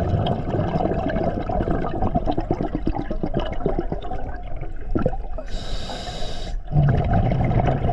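Scuba diver breathing underwater through a regulator: a long exhale of bubbling. A little past five seconds in comes a one-second inhale with a whistling hiss from the regulator, then bubbles again.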